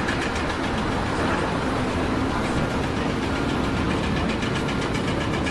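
An engine or heavy machine running steadily and loudly with a fast, even pulse.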